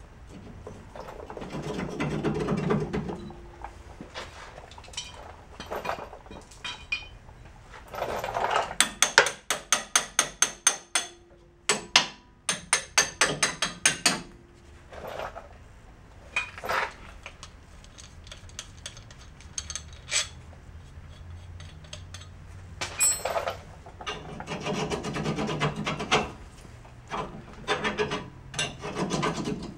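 Hand ratchet wrench clicking in quick runs as the nuts are run down on new leaf-spring U-bolts, with metal clinks and scraping of the bolts and plate between runs and a few hammer taps near the end.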